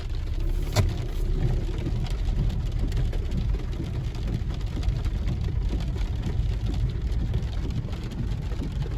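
Car driving, with steady low engine and road noise inside the cabin. A single sharp click comes about a second in.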